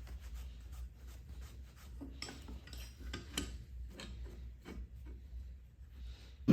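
A peanut-oil-soaked rag rubbing over a hot forged steel hook, with light scraping and scattered small clicks over a steady low rumble. A single sharp knock comes at the very end.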